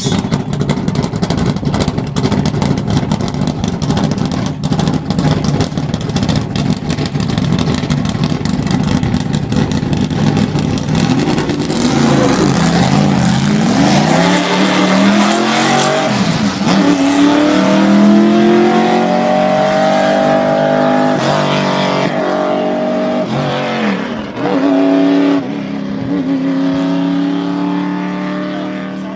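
1969 Camaro Z/28 road-race car's V8 idling unevenly, then pulling away hard about twelve seconds in and accelerating through the gears: the pitch climbs several times, broken by short drops at the shifts. The exhaust note fades as the car goes off into the distance near the end.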